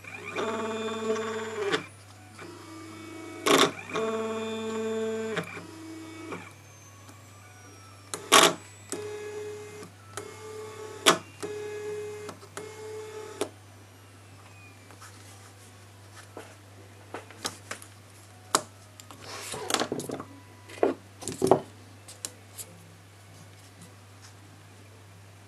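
Stepper motor, driven by an Allegro A4983 driver board, running a lead screw in short bursts with a steady pitched whine: two runs of about a second and a half near the start, then four shorter runs at one pitch a few seconds later. Sharp clicks sit between the runs, and a cluster of clicks and knocks comes later as a cable connector is handled.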